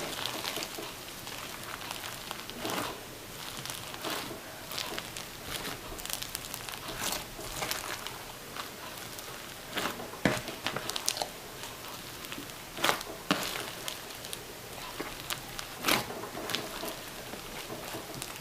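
Hands squeezing and working a slime packed with small styrofoam balls: continuous crunching and crackling, with occasional louder sharp pops at irregular intervals.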